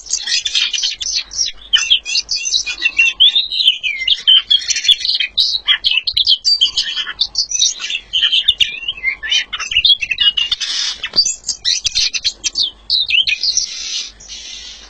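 A songbird with no feathers singing a fast, unbroken stream of high chirps and trills, the continuous 'ngacor' song that bird keepers prize. The song stops about a second before the end.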